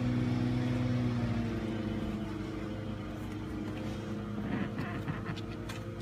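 Car engine idling steadily, its hum shifting slightly about a second and a half in, with a few faint clicks and rustles.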